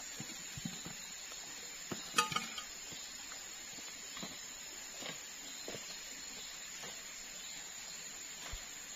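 Footsteps on dry leaf litter and forest floor, soft irregular crunches about once a second, with a sharper crackle about two seconds in. A steady high insect drone runs underneath.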